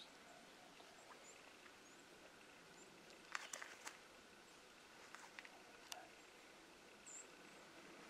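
Near silence outdoors: faint steady background hiss, broken by a quick cluster of sharp clicks or snaps about three and a half seconds in, a few softer clicks around five to six seconds, and a short high chirp near the end.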